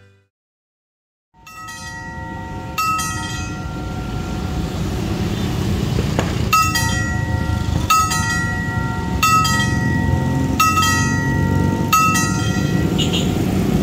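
Electric level-crossing warning bell (genta) with a dome-shaped gong. It starts about a second in and is struck about once every 1.3 seconds, each stroke ringing on with a metallic tone, warning that a train is approaching and the crossing gates are about to close. A steady low rumble of traffic runs underneath.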